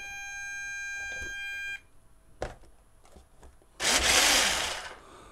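Remote-controlled monster truck toy: a steady high electronic tone for about two seconds that cuts off suddenly, a click, then about a second of loud whirring from the toy.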